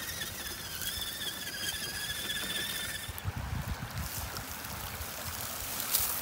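Redcat Everest-10 RC rock crawler's electric motor and gears whining steadily as it drives, cutting off about three seconds in. A short low rumble follows, with a sharp click near the end.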